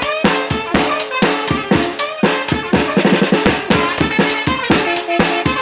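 Yucatecan charanga brass band playing live: trumpet and saxophone over a steady beat of bass drum (bombo) and snare, with a quick run of drum strokes about three seconds in.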